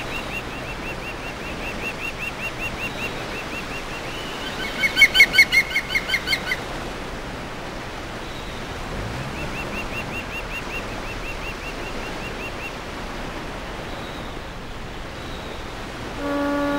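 Gulls calling over a steady background hiss: a high chirp repeated about three times a second, and about five seconds in a louder quick series of about eight calls. Near the end a ship's horn starts, a deep steady blast.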